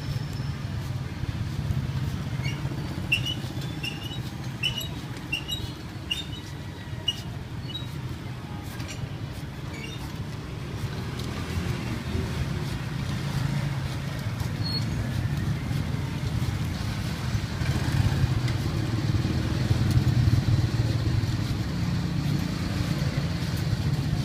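Street motor traffic, a steady low engine drone that swells louder about eighteen seconds in. A string of short high chirps, about two a second, sounds a few seconds in.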